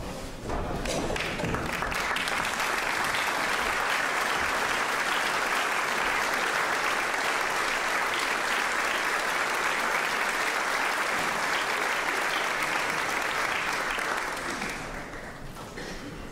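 Audience applauding. The applause starts about half a second in, holds steady and dies away near the end.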